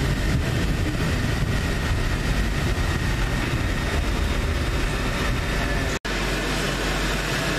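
Cabin noise inside a Hong Kong Peak Tram funicular car as it runs: a steady low rumble with a faint high whine. The sound cuts out for an instant about six seconds in and comes back with a different, steadier low hum.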